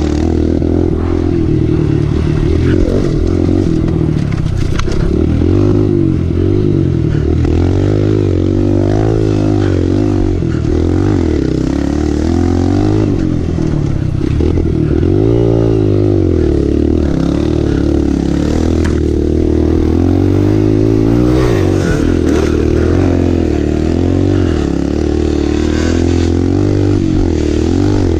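Kawasaki KLX 140L dirt bike's single-cylinder four-stroke engine running hard, its revs rising and falling over and over as it is ridden off-road.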